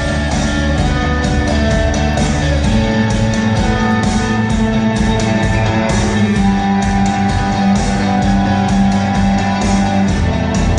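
Rock music in an instrumental passage with no singing: guitar to the fore over a steady beat, the bass line shifting about a quarter of the way in.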